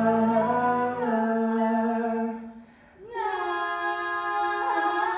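A young woman and a young man singing a duet into microphones, holding long notes. One held note fades about two and a half seconds in, and a new one starts half a second later.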